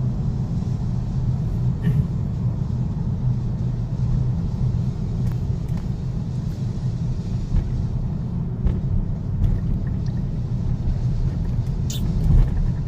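Cabin noise of a moving car: a steady low engine and road rumble, with a few light clicks, the sharpest near the end.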